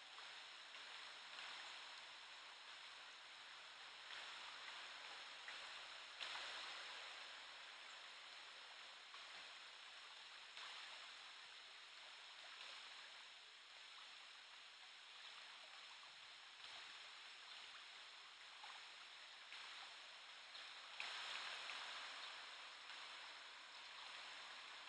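Faint, steady rush of the Vézère river's current rippling past, swelling a little about six seconds in and again near the end.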